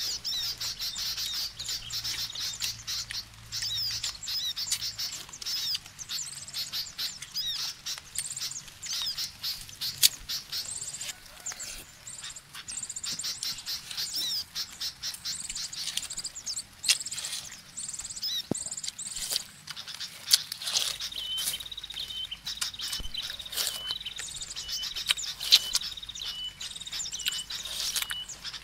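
Wet chewing and slurping of watermelon, a run of short, sharp mouth clicks and pops with a few louder ones, over a constant background of birds chirping and insects. From about two-thirds of the way through, a high, rapidly pulsing insect trill joins in.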